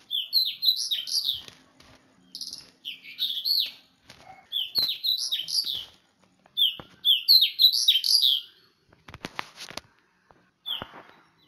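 A songbird singing: short phrases of quick, high chirps, repeated about every two seconds, with a few sharp clicks near the end.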